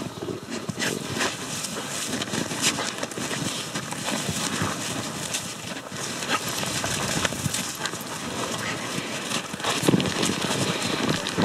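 Siberian huskies digging and bounding through deep fresh snow: irregular crunching footfalls and thumps in the snow, which get louder and closer about ten seconds in.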